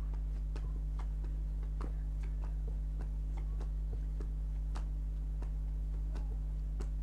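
Playing cards being laid down one after another onto a pile, giving an irregular series of light clicks and taps, over a steady low electrical hum.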